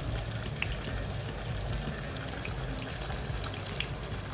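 Hot oil sizzling in a pan over a high flame, frying garlic, ginger, chili pepper and freshly added doubanjiang (chili bean paste), with small pops and crackles scattered throughout over a steady low hum.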